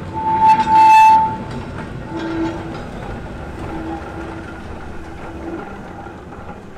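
Hudswell Clarke steam locomotive's whistle giving one short blast of about a second, the loudest sound, followed by the rumble and clank of the loco and its wagons rolling slowly past over rail joints.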